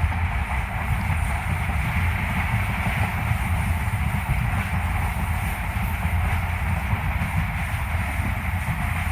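WDP4D diesel locomotive running steadily, its 16-cylinder two-stroke engine giving a constant deep drone with no change in pitch or loudness.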